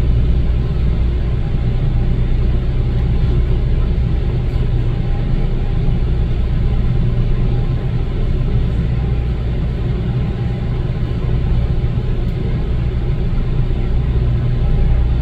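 Steady low rumble of a running vehicle engine with a constant deep hum, holding even with no rise or fall.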